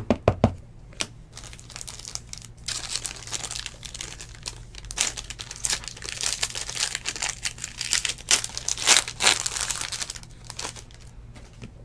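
Foil trading-card pack wrapper being crinkled and torn open by hand: a dense crackling that starts about two and a half seconds in and runs for several seconds, after a few light clicks at the start.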